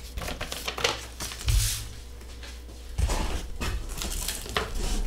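Corrugated cardboard box flaps being pulled open and folded back by hand: scattered scrapes and rustles of cardboard, with a short burst about one and a half seconds in and busier handling from about three seconds in.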